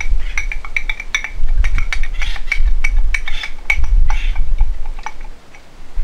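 Aerosol spray-paint can being shaken, its mixing ball rattling in quick, ringing clicks, with short hisses of spray between. A low rumble comes and goes underneath.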